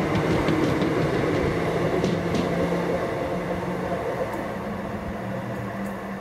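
A train running past and moving away, its rumble fading steadily, with a few sharp clicks about two seconds in.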